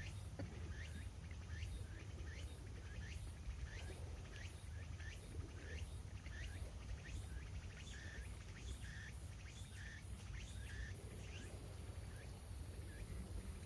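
A bird calling over and over in short, evenly spaced calls, about two or three a second and a little quicker past the middle, that stop near the end. A steady low rumble runs underneath.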